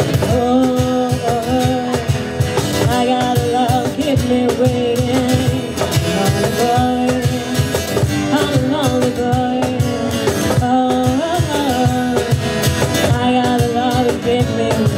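Live acoustic band: a woman singing a melody into a microphone through PA speakers, over a strummed acoustic guitar and a cajón beaten in a steady rhythm.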